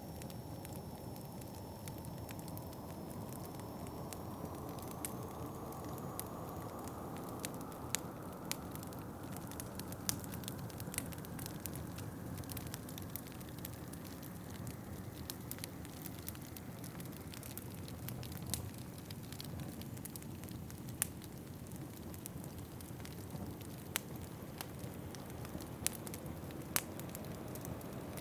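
Wood fire crackling, with scattered sharp pops, over a steady low rush of wind.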